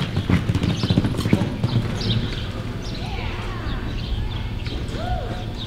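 Reining horse galloping on soft arena dirt, its hoofbeats quick and loudest for the first two seconds, then giving way to a steadier, quieter noise as it goes into a sliding stop. A short whistle that rises and falls comes near the end.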